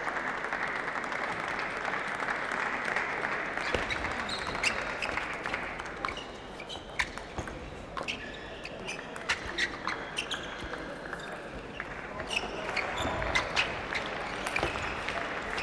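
Table tennis rally: the celluloid ball clicks against the bats and the table in a quick series of sharp ticks for about ten seconds, with a haze of crowd noise in the hall that dies down about four seconds in.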